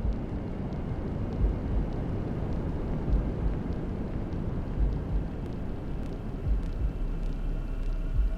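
Steady low, rumbling whoosh of womb-style white noise, with recurring deep thumps of a heartbeat under it.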